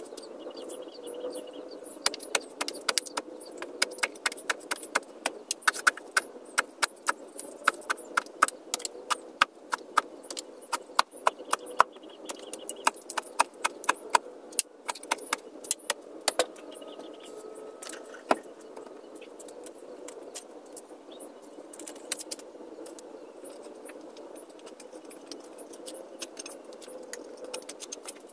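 Long-handled digging bar jabbed again and again into the soil to dig a post hole: a quick run of sharp clicks and scrapes, a few each second, that thins out about halfway through. A steady low hum runs underneath.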